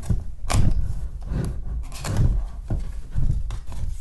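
Cardboard camera box being opened by hand: the flaps are pulled open and the inner packaging is rubbed and shifted, making a series of short scrapes, rustles and light knocks.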